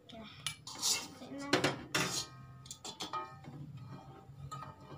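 A metal spoon clinking and scraping in a metal wok as leaves are scooped into a bowl. There are several sharp clinks, the loudest about one and two seconds in.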